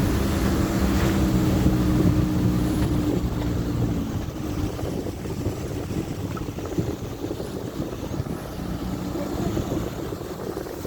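Motor vehicle engine running at a steady pitch, easing off about four seconds in and carrying on lower, with wind noise on the microphone.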